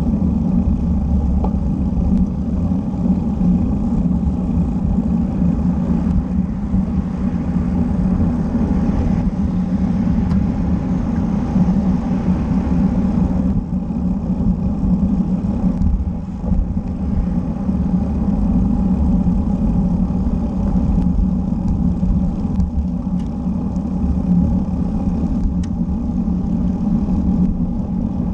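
Steady wind rumble on a bike-mounted camera's microphone while riding at speed, mixed with road-bike tyres rolling on asphalt.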